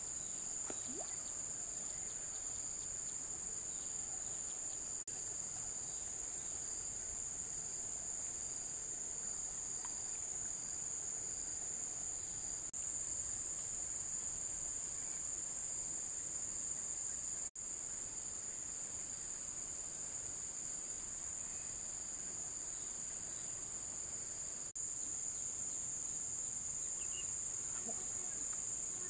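A chorus of insects singing in one steady, high-pitched drone, with a few brief breaks.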